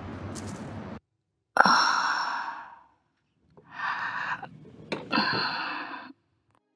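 A woman giving three long, breathy sighs, the first the loudest and fading away. Before them, about a second of steady background noise cuts off abruptly.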